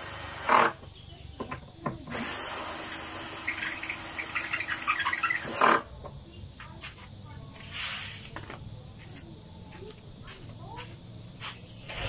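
Cordless drill/driver running in short bursts, driving screws through a speaker cabinet's cover board. It runs briefly about half a second in, then once for about three and a half seconds in the middle, and again briefly near 8 s.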